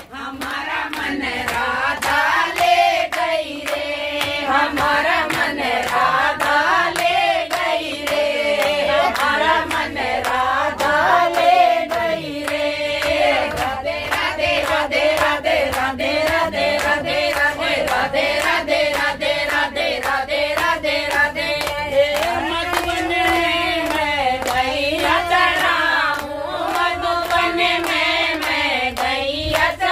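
A group of people singing a devotional bhajan, kept in time with rhythmic hand clapping.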